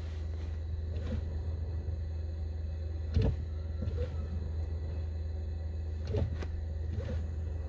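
Brake pedal on a Jaguar I-Pace squeaking: about five short squeaks, the loudest about three seconds in, over a steady low rumble.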